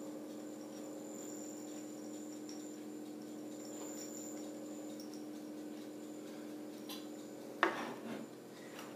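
Quiet kitchen room tone with a steady low hum and faint rustling as flaked almonds are sprinkled over dough in a ceramic baking dish. About seven and a half seconds in comes one sharp knock on the tabletop as a container lid or the dish is set down.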